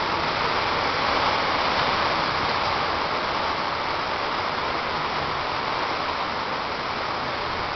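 Hurricane wind with driving rain: a steady rushing noise that swells a little about a second in.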